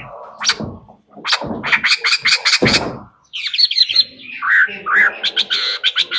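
Chinese blackbird singing a varied song. A fast run of harsh chattering notes is followed, after a brief pause about three seconds in, by high whistled notes and swooping glides.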